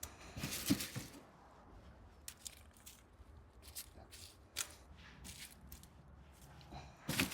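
Irregular crunching and rustling of flower bulbs and soil being handled during bulb planting, with the loudest bursts about half a second in and again near the end.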